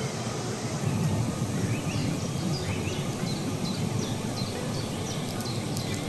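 Steady rush of falling water from a waterfall. From about two seconds in, a bird gives a run of short, quick chirps over it.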